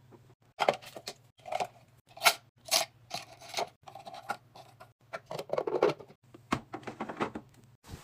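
Hands restocking bathroom supplies: clear plastic containers are handled and set down, and cotton swabs are packed into a clear container. It makes irregular clicks, taps and short rustles over a faint low hum.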